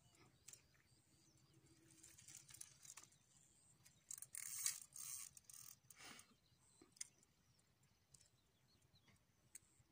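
Quiet outdoor ambience by the water, with a few faint clicks and a brief hissing rustle about four to six seconds in.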